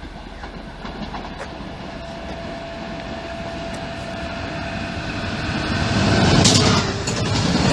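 Stadler FLIRT electric multiple unit approaching and passing close by, its wheel and rail noise growing steadily louder over a steady whine. There is one sharp click about six and a half seconds in.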